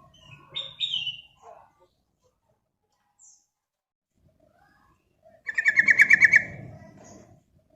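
Yellow-vented bulbul (trucukan) singing. A few short chirps come at first, then a pause, then about five and a half seconds in a loud, fast run of about ten repeated notes in a second that trails off.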